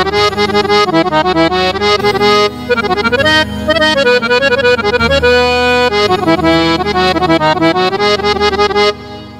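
Roland XPS-10 keyboard playing an accordion-style patch: a quick melody over held chords and bass, dropping in level near the end.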